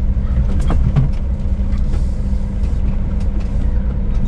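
Scania S500 truck's engine running steadily at low speed, with a few knocks and rattles about a second in.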